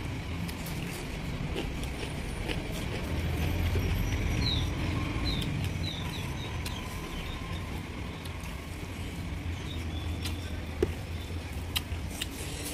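Hand-eating sounds: fingers working rice on a plate and chewing, with faint scattered clicks, over a steady low rumble. About four to six seconds in come a few high, falling chirps.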